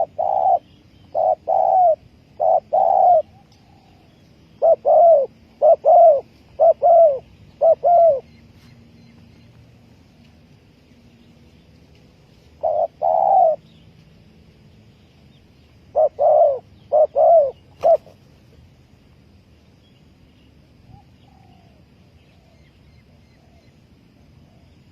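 Spotted dove cooing in repeated phrases of short, arched coos, four groups in quick succession. The cooing stops about two-thirds of the way through. Faint twittering of other birds is heard behind it.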